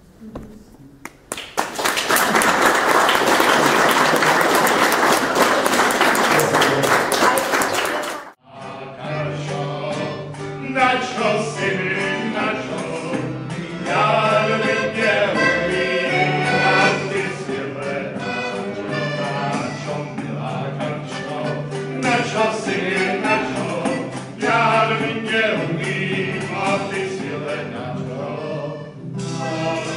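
Audience applause for about seven seconds, cut off abruptly. Then a live folk group takes over: several voices singing together to acoustic guitars and an accordion.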